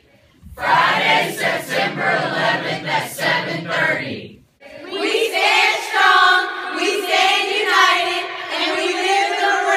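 A group of mixed voices singing together, which breaks off about four seconds in. A higher-pitched group of girls' voices then takes up the singing with long held notes.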